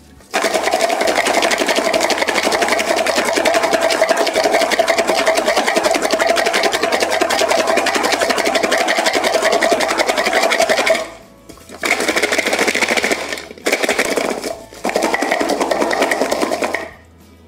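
Garlic cloves rattling inside a plastic jar shaken hard and fast, a dense loud clatter that knocks the papery skins off the cloves. The shaking pauses briefly about eleven seconds in and twice more shortly after, then stops near the end.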